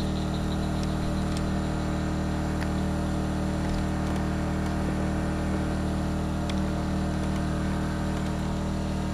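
Small engine on a bowfishing boat running steadily at constant speed, an even hum, with a few faint clicks over it.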